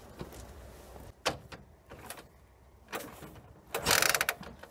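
A few sharp metal clicks about a second apart, then a short burst of rapid ratcheting rattle near the end: a metal ratchet mechanism being worked by hand.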